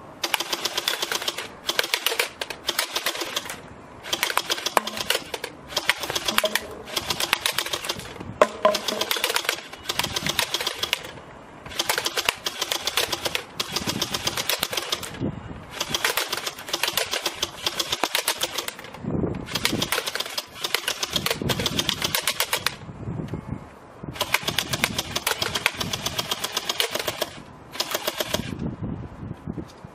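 LeHui AK-74U toy gel-ball gun firing on full auto: about a dozen bursts of rapid mechanical clacking, each one to three seconds long, separated by short pauses.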